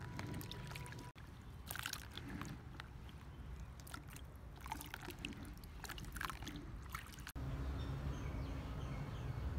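Hands lifting and turning chunks of cut sweet potato in a plastic basin of water: repeated sloshing and splashing. About seven seconds in, this gives way to a steady low background rumble.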